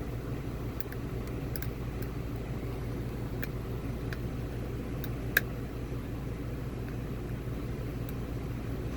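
Faint, scattered clicks of a lock pick working the spring-loaded pins of an Assa Abloy (TrioVing) 7-pin cylinder, one sharper click about five and a half seconds in, over a steady low background hum.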